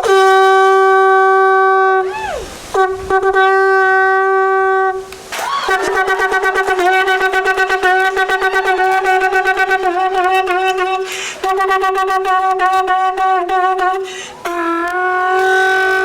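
Conch shell blown as a horn: a single steady note rich in overtones, held in long blasts with short breaths between. About five seconds in it turns into a long, rapid fluttering trill on the same pitch, and it ends on another held note.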